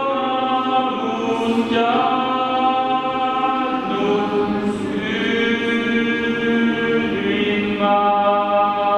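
Amateur choir singing a cappella in sustained, held chords that move to new chords every couple of seconds.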